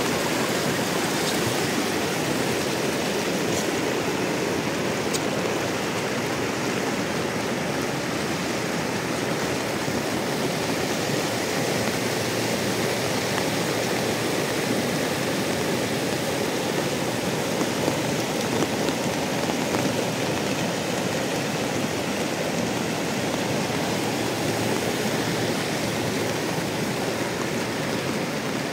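Steady rush of a fast-flowing river, swollen by rain.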